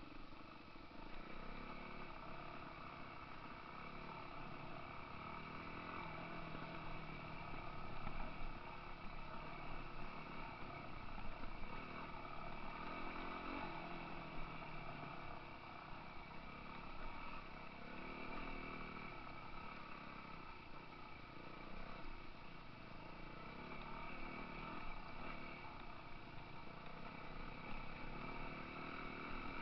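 Dirt bike engines running, the engine note rising and falling with the throttle.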